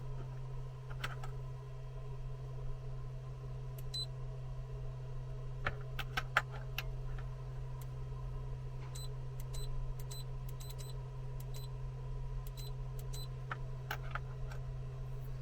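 Steady low hum with scattered light clicks and ticks of small tools being handled at the workbench, where soldered wires are being removed from an instrument cluster circuit board.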